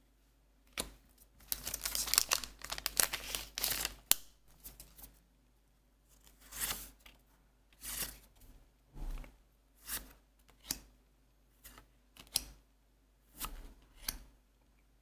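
Trading cards and plastic packaging being handled: a dense crinkling run of a couple of seconds starting about a second and a half in, then single short swishes about once a second as cards are slid off the stack one by one.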